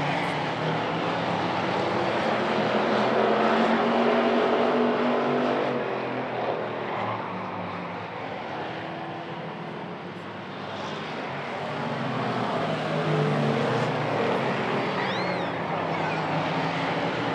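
A pack of hobby stock race cars running at speed around an oval, their engines swelling and fading as the cars come by, quietest about ten seconds in.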